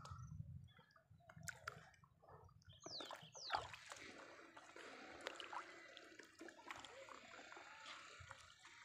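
Faint dripping and trickling of water off a wet fishing net as it is hauled by hand into a small boat, with light splashes and sloshing. About three seconds in there is a quick high falling squeak and a sharp click.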